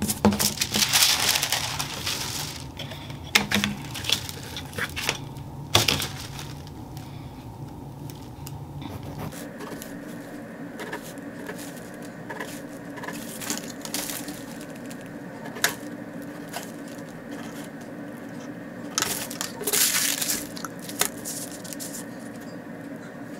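Tissue-paper sewing pattern rustling and crinkling as it is handled and shifted, busiest in the first few seconds and again briefly near the end, with scattered light taps of a ruler and pen on the paper in between.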